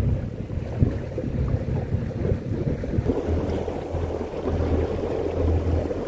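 Wind buffeting the microphone on a moving small boat, with the low, steady hum of the boat's motor coming up about three seconds in.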